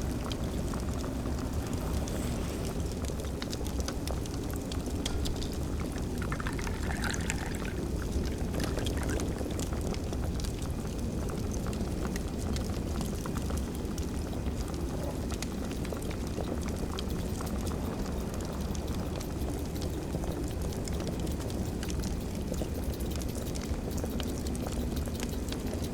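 Wood fire crackling, with scattered small pops over a steady low rumble.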